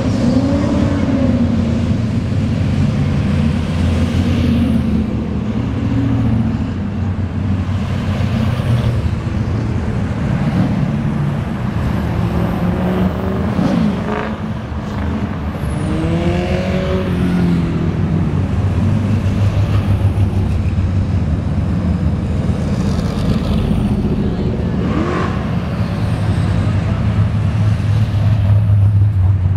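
Cars cruising slowly past on a busy street, several engines and exhausts rumbling at once. A few revs rise and fall as vehicles go by. It gets loudest near the end as a car passes close.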